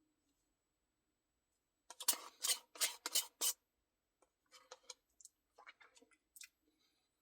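Eating a Blizzard: a quick run of about five scratchy scrapes about two seconds in, then a few lighter, scattered clicks and scrapes.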